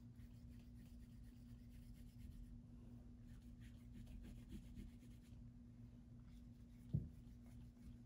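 Faint scratching of a felt-tip marker on paper, colouring in with back-and-forth strokes, over a low steady hum. A soft knock comes about seven seconds in.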